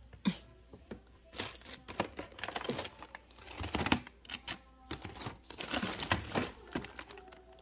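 Rummaging through a cluttered wooden drawer: plastic packaging crinkling and rustling, with irregular small clicks and knocks as items are moved about.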